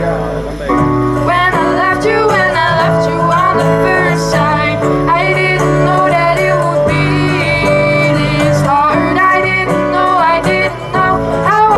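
Live acoustic pop song: a woman singing, with acoustic guitar and keyboard accompaniment.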